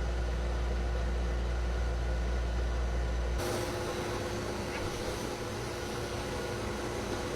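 Pet blow dryer running steadily: a motor hum with rushing air. About three seconds in, the deep low rumble drops away and the air hiss turns brighter.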